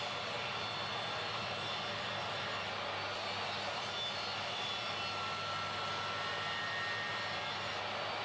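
Power saw running steadily while cutting MDF offcuts. The noise starts suddenly and cuts off abruptly.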